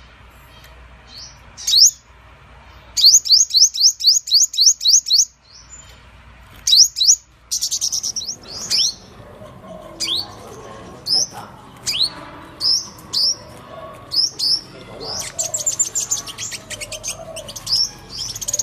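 Purple sunbird calling: sharp, high chirps that each sweep down in pitch. They come in quick runs of about four a second, around three to five seconds in and again near the end, and otherwise one at a time, a little more often than once a second.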